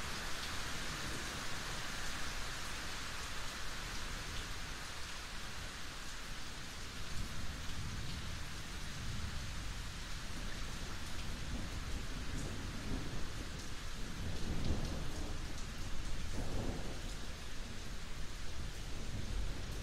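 Steady rain, with low rumbles of thunder that come and go through the second half.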